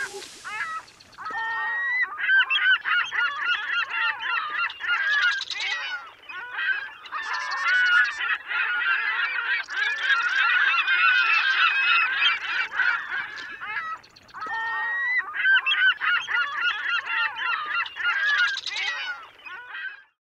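A flock of birds calling, many short calls overlapping densely, with a few brief lulls; it fades out at the end.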